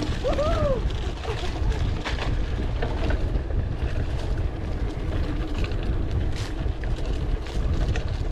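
Wind buffeting the microphone over the rattle and clatter of a mountain bike riding down a dirt singletrack, with sharp knocks as it goes over bumps. A brief rising-and-falling tone sounds about half a second in.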